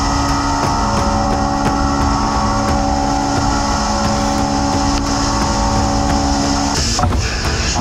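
DN Solutions BVM 5700 vertical CNC mill cutting a dovetail in annealed A2 steel with a dovetail cutter under flood coolant: a steady spindle and cutting drone with several held tones over the hiss of the coolant spray. The tones drop out and the sound changes about seven seconds in.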